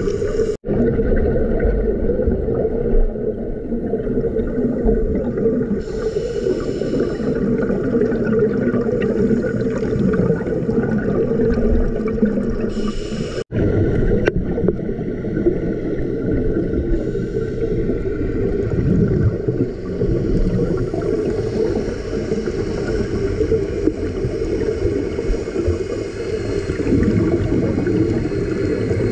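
Muffled underwater sound from a diving camera: a steady low rumble and hum, with short bursts of bubbling from scuba regulator exhalations. It cuts out for an instant twice, once near the start and once near the middle.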